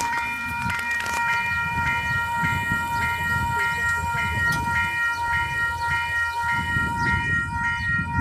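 Western-Cullen-Hayes level crossing warning bells ringing in a fast, even rhythm as the crossing activates for an approaching train, over a low rumble.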